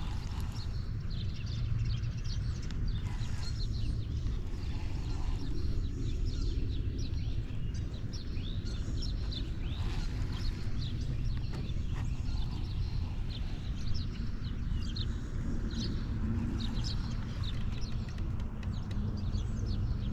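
Small birds chirping repeatedly over a steady low rumble.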